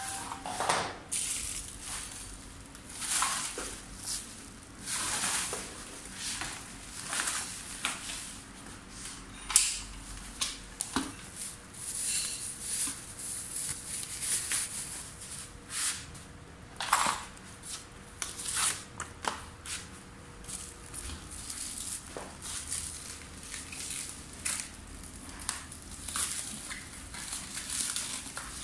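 Plastic film, bubble wrap and cardboard packaging rustling and crinkling in irregular bursts as they are pulled and cut off a new electric scooter.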